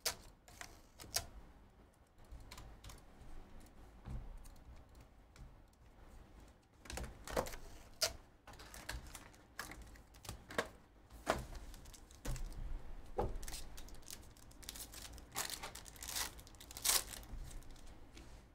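Irregular light clicks and taps of hands working at a desk: computer keyboard and mouse clicks, and the handling of a cardboard trading-card hobby box and its packs.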